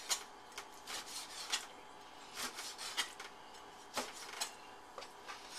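Cleaver chopping pork rib trimmings into chunks on a wooden cutting board: irregular knocks of the blade on the wood, about two a second, with the blade rubbing through the meat between.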